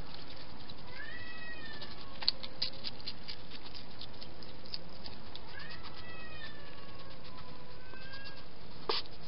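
A cat meowing twice: two long, drawn-out calls a few seconds apart, each rising and then slowly falling in pitch. Short sharp clicks come between the calls, with one more sharp click near the end.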